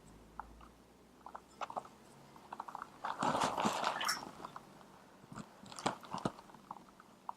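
Clip-on microphone rubbing against the fabric of a dress: scattered crackles and clicks, with a denser rustle about three to four seconds in.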